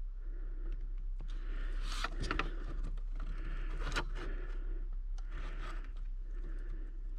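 A person breathing and sniffing close to the microphone, with scattered clicks and scrapes from handling a lighter and a wire connector, the loudest about two and four seconds in.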